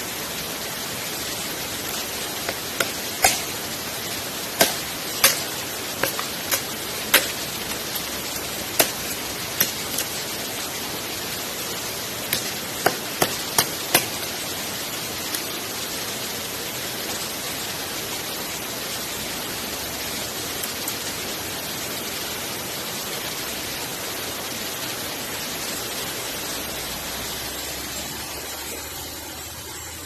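Steady rush of a small waterfall and stream. Over it, about fifteen sharp, irregular knocks of wood being chopped by hand stop about halfway through.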